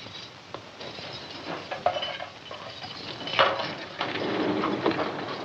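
Footsteps and light clicks and clinks as a man gets up and crosses a room, with a louder scuff about three and a half seconds in.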